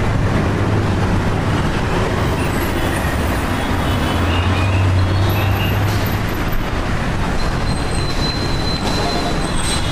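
City street traffic: a steady wash of engine and tyre noise under a low engine drone, which swells about four seconds in as a heavy vehicle runs close by.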